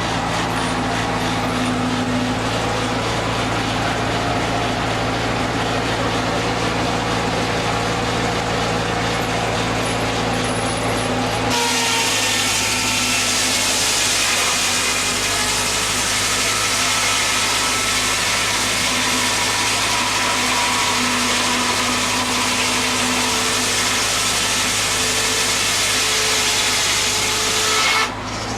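Engine-driven sawmill running steadily; about a third of the way in, its saw blade bites into a log and cuts for about sixteen seconds with a loud hiss, then comes out of the wood shortly before the end.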